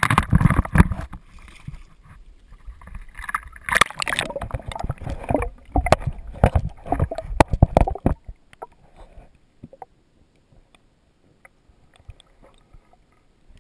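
Shallow lake water splashing and sloshing, with knocks and handling bumps, as the camera is plunged into the water. About eight seconds in the sound drops to a muffled near-quiet with faint scattered ticks, heard from under the water.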